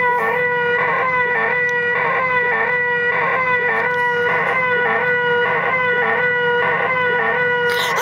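A steady, high-pitched nasal buzzing tone that pulses about three times a second without a break, put on as 'the most annoying sound in the world'.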